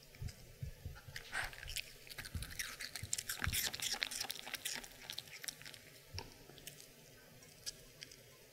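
Maltese puppy crunching and chewing a piece of raw apple: rapid crisp crunches, busiest midway, thinning out near the end.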